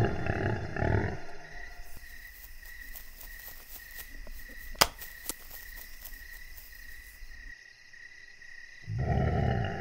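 Wild boar grunting: deep grunts about a second long at the start and again near the end. Between them a faint steady high chirr, and a sharp click about halfway.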